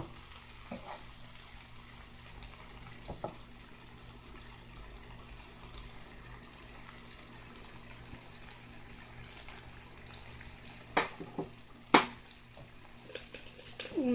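Boneless chicken breast pieces sizzling steadily in oil in a frying pan as they brown, nearly done. A few sharp clicks come about eleven and twelve seconds in.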